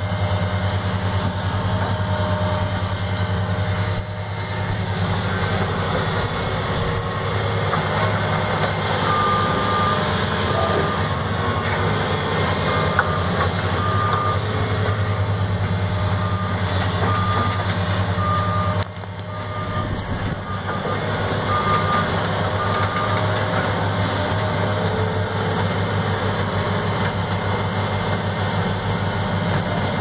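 John Deere 470G excavator's diesel engine running steadily under load as it works fill dirt. A backup alarm beeps about once a second through the middle of the stretch.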